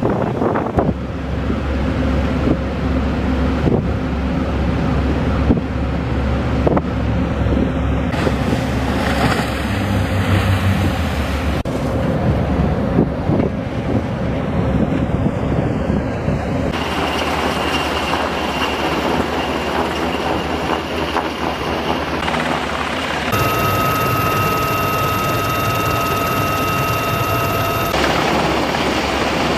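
Small boat engines running at speed with water rushing and spraying, and wind buffeting the microphone. After a change about two-thirds of the way in, a steady high-pitched mechanical whine sits over the engine noise for several seconds.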